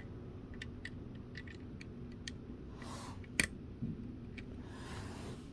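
Small plastic clicks of Lego pieces being handled and pressed together, scattered irregularly, with one sharper click about three and a half seconds in and a couple of soft rustles of pieces being sorted.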